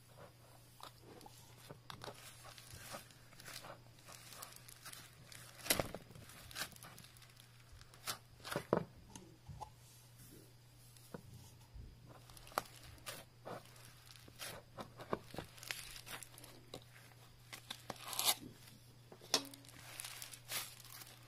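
Foam microbeads poured from a plastic jar onto slime already packed with beads, then the beaded slime giving off scattered, irregular crackles and crunches as it is squeezed and kneaded by hand.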